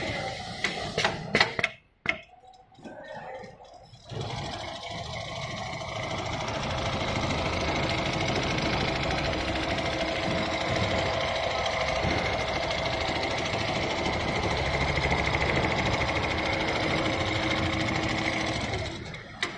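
Richpeace automatic sewing machine running steadily as it stitches, with a few sharp mechanical clicks near the start and again at the end.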